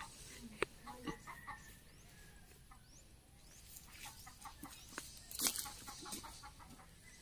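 Chickens clucking, fairly faint, in short runs of quick repeated notes, with a few light clicks and one brief louder rustle about five and a half seconds in.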